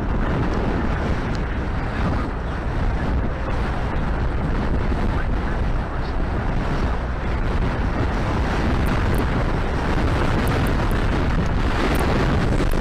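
Wind buffeting the microphone: a steady low rumble and rush that grows a little louder near the end.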